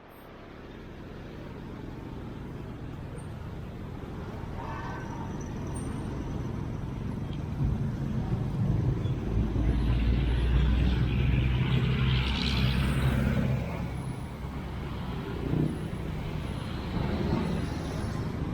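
Street traffic, with a heavy vehicle's engine rumbling past and a rising hiss at its loudest, about ten to thirteen seconds in.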